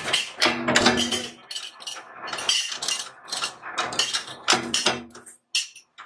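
Flywheel power press working carbon-steel sheet latch parts: a run of irregular, sharp metallic clanks and clinks as the press strikes and the steel pieces are handled.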